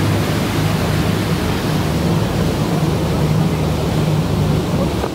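Tour boat's motor running with a steady low hum under the loud rush of the white water churned up in its wake.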